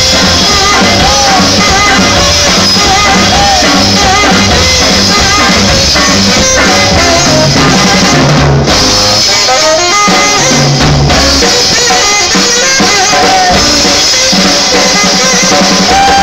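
Live swing jazz band playing: a tenor saxophone plays the lead line over drum kit and upright bass.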